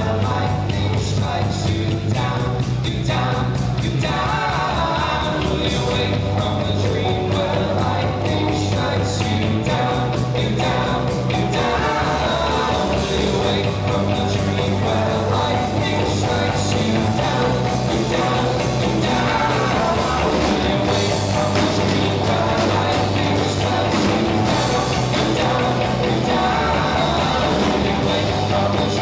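Live rock band playing with drums, bass and guitars, and a singer; the bass line changes note every couple of seconds.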